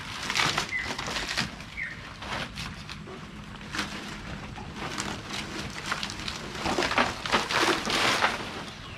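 Banana leaves rustling and crackling as they are handled, laid and pressed down in layers over an umu earth oven. The crackle comes in spells, loudest near the start and again late on as an armful of leaves is gathered up.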